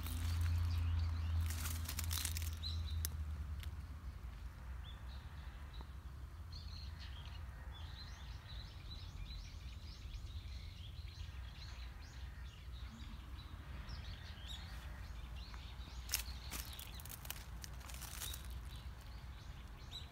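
Outdoor park ambience: small birds chirping over and over, high and thin, over a low rumble that is strongest in the first few seconds. A few short crackles come near the end.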